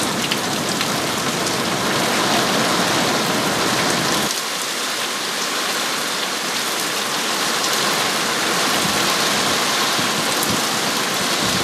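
Heavy rain in a thunderstorm downpour, falling steadily and streaming off a roof edge. About four seconds in, the deeper part of the rain sound drops away.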